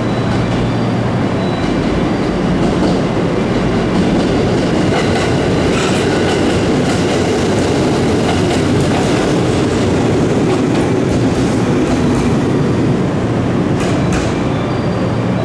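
213 series electric train pulling into a station: a steady loud rumble of steel wheels on rail with clattering over the rail joints, and a few sharp, brief high-pitched sounds about six seconds in and again near the end.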